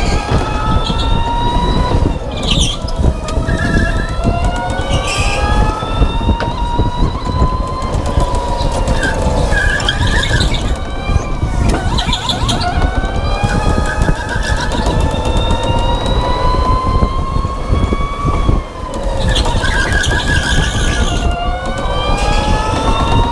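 Go-kart motor whining as the kart drives laps, its pitch climbing and falling over and over with acceleration and braking, with sharp drops about halfway and again near the end. A steady low rumble runs under the whine.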